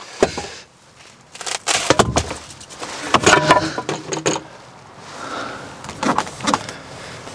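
Irregular knocks and rattles inside a metal van as a mop and a cardboard tube used as props are taken down from under the roof insulation boards, in several clusters with the loudest about two and three and a half seconds in.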